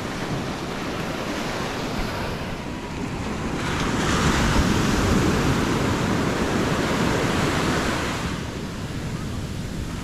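Atlantic Ocean surf breaking and washing up the sand, a steady rush that swells louder for about four seconds in the middle as a wave runs in, then eases back. Wind buffets the microphone underneath.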